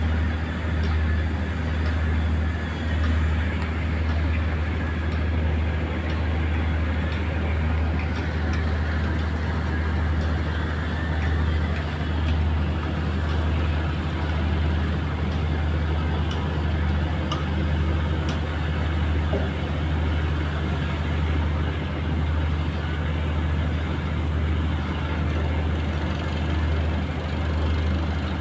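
Diesel engine of a large wooden fishing boat running steadily: a deep, constant drone with a slight regular pulse.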